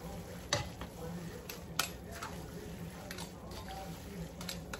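Spatula and spoon clacking and scraping against a frying pan while rice noodles are tossed and stirred, with soft squishing of the noodles; the two sharpest clacks come about half a second and a little under two seconds in. A steady low hum runs underneath.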